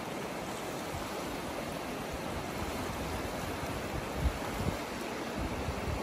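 Small sea waves washing in over shallow water at the shoreline: a steady hiss of surf. A few short low wind buffets on the microphone from about two-thirds of the way through.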